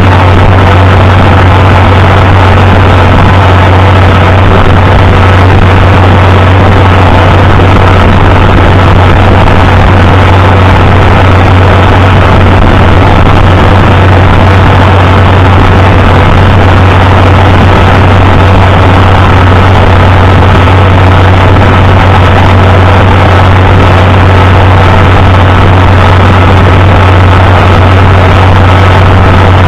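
Farmall 560 tractor engine running loud and steady, with a strong low drone and no change in speed.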